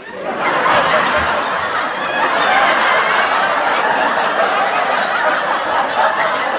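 Sitcom studio audience laughing, many voices together, swelling up in the first half second and then holding steady.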